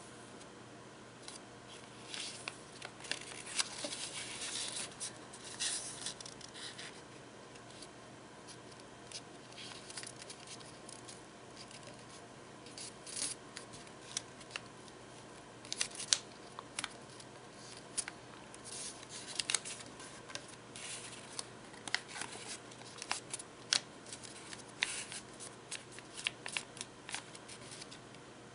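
A sheet of origami paper being folded and creased by hand. Quiet, irregular rustling and crinkling comes with sharper crackles as the folds are pressed flat.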